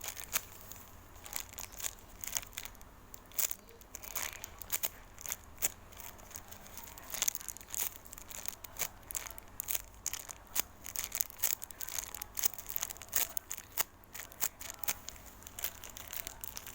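Irregular crinkling and rustling, like plastic packaging being handled, with scattered sharp crackles.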